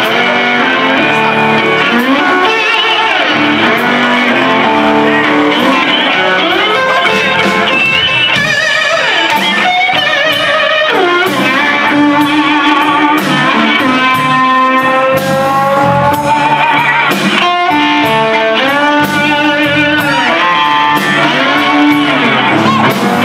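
Live blues band playing an instrumental passage on electric guitars, bass and drums, with a slide guitar gliding up and down between notes, most clearly in long slides around the middle.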